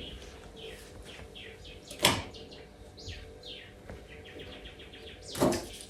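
Birds chirping in short falling notes, with a quick run of chirps near the end. A single knock sounds about two seconds in.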